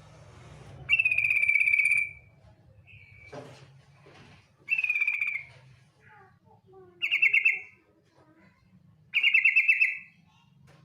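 Female yellow-vented bulbul (trucukan) giving its harsh rattling chatter call four times, each burst under a second and dropping slightly in pitch. This is the female's chatter used as a lure to set males singing.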